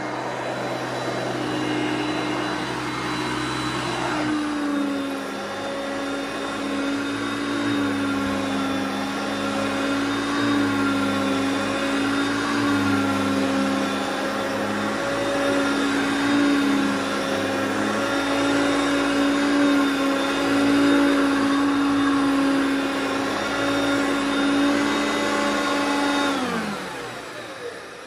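Vintage bagged upright vacuum cleaner with a cloth outer bag running on a rug, a steady motor whine that dips slightly in pitch about four seconds in. Near the end it is switched off and winds down, its pitch falling away.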